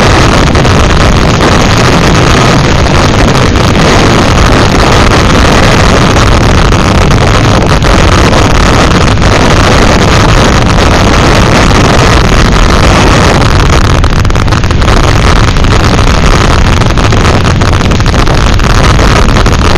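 Demolition derby cars' engines running and revving, buried in heavy wind buffeting on the microphone that keeps the sound loud and distorted throughout.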